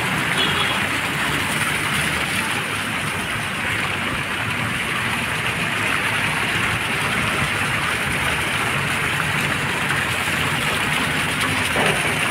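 Steady hiss and splash of fountain jets falling into a pool.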